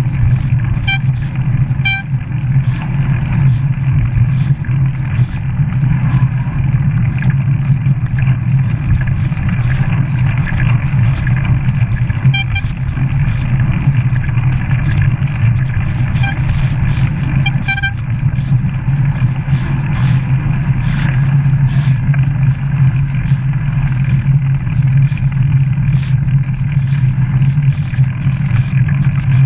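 Bicycle riding on a tarmac path heard from a handlebar-mounted camera: a steady rumble of wind and tyres, with frequent small clicks and rattles from the bike and mount. A few brief ringing tones sound about a second in, again a second later, and twice more partway through.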